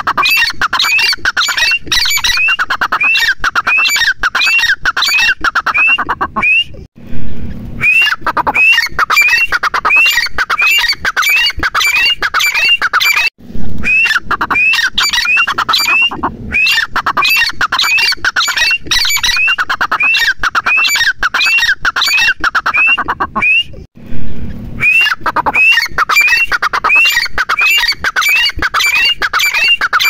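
Grey francolin (teetar) calling: bouts of quick, loud, repeated rising notes, about two a second, each bout lasting several seconds. Short breaks come about 7, 13 and 24 seconds in, and each new bout starts with a louder burst.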